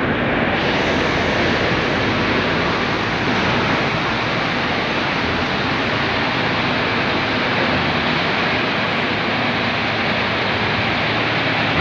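Steady, loud rumble and hiss of engines and machinery echoing in a ferry's enclosed vehicle deck, unchanging throughout.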